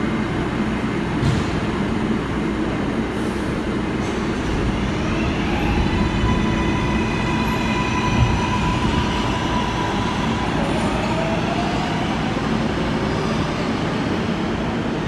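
New York City Subway 7 train of R188 cars pulling out of the station, its wheels rumbling on the rails. A whine from its traction motors rises in pitch as the train picks up speed about four seconds in, then holds steady.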